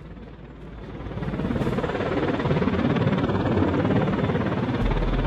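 Helicopter rotor and engine noise that builds over the first couple of seconds, holds steady, then begins to ease near the end.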